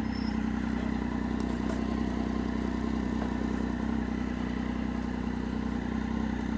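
Triumph Street Triple's 675 cc three-cylinder engine running steadily at idle, with no revving.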